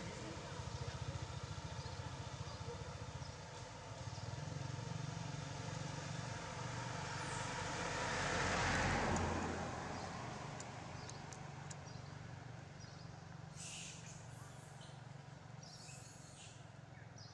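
A motor vehicle's engine hum, building to a peak about halfway through as it passes and then fading away. A few short high chirps come near the end.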